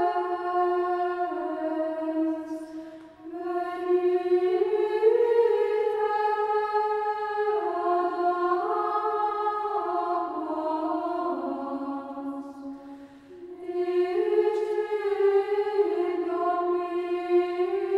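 Background music: a choir singing a slow unaccompanied melody in unison, in long held notes that step up and down. The singing breaks off briefly about three seconds in and again around thirteen seconds, between phrases.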